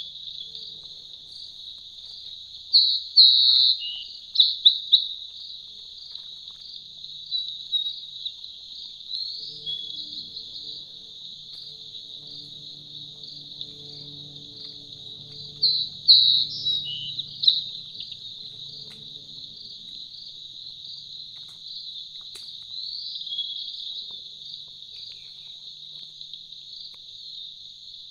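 Steady high-pitched chorus of insects, cricket-like, with a few short bird chirps standing out, loudest about three seconds in and again around sixteen seconds.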